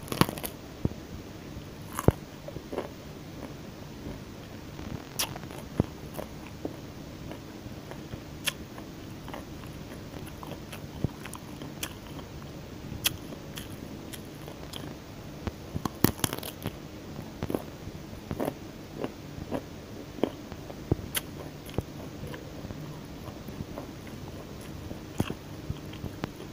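Raw broccoli being bitten and chewed close to the microphone: sharp, irregular crunches every second or two, with a quick cluster of several about halfway through.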